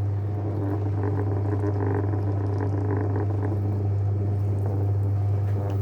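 JW Ratcliffe and Sons electric pottery wheel running at a steady speed with a constant low hum, its motor holding speed under the pressure of hands centring wet porcelain clay.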